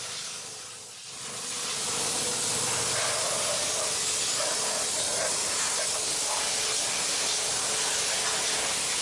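A steady hiss that swells in over the first two seconds and then holds even.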